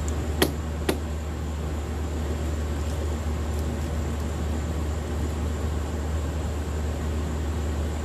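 Two sharp clicks about half a second apart near the start, over a steady low hum and hiss.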